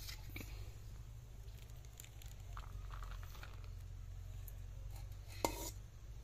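Steel ladle scooping cooked rice out of an aluminium pot and tipping it onto a banana leaf: soft scraping and pattering with light metal clicks, and one sharp ringing metal clink about five and a half seconds in. A steady low hum runs underneath.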